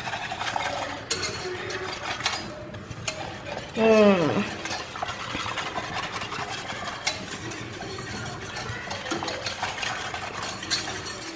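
Wire whisk stirring coconut milk in a stainless steel saucepan, scraping steadily against the metal with light clinks. About four seconds in, a short falling-pitched tone sounds over it, the loudest moment.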